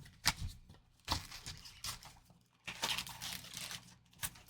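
Foil-wrapped trading card packs being pulled out of a cardboard blaster box, crinkling and rustling in several short bursts, with a longer stretch of crinkling about three seconds in.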